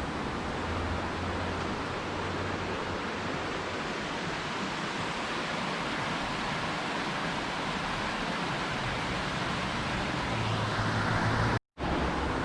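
Steady rushing outdoor noise with some low rumbling at times, cut off by a brief dropout near the end.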